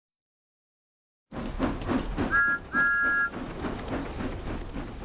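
Silence for about a second, then a cartoon steam-train sound effect: rhythmic chuffing with two toots of a two-note steam whistle, a short one and then a longer one.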